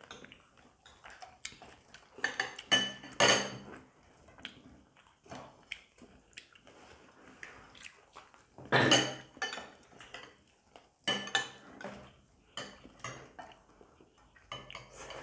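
Metal spoons and chopsticks clinking and scraping against ceramic bowls and plates during a meal. The sounds are irregular, sharp taps, with a few louder clinks that ring briefly.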